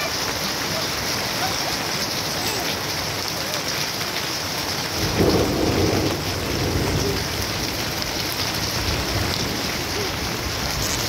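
Steady heavy rain falling on garden plants and waterlogged ground, with a low rumble of thunder about five seconds in that lasts a couple of seconds.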